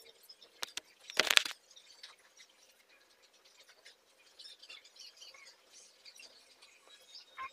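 Hair rustling and crackling as a girl braids it by hand, in faint scattered scratchy sounds with a short, louder rustle about a second in.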